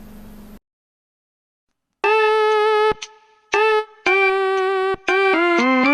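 Otamatone playing a ringtone melody in buzzy, horn-like notes that each scoop up in pitch at the start. After a short hum and a pause of more than a second, a long note sounds about two seconds in, then a short one, another long one, and a quick run of short notes stepping down near the end.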